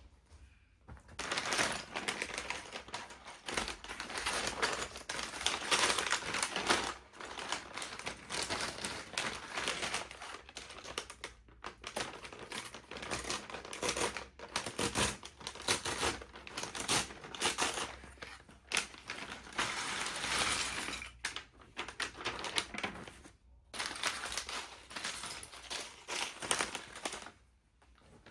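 LEGO set packaging and pieces being handled: continuous crinkling and rustling of plastic and cardboard, with rapid clicking and clattering mixed in, stopping briefly a few times.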